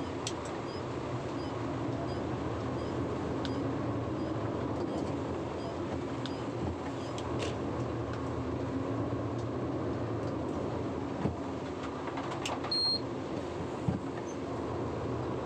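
Concrete mixer truck's diesel engine running steadily, heard from inside the cab while driving on a wet road, with scattered faint ticks and a short high beep near the end.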